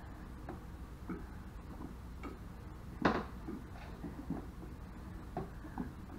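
Light scattered clicks and knocks of plastic cups and a plastic bowl being handled and drunk from, with one louder knock about three seconds in.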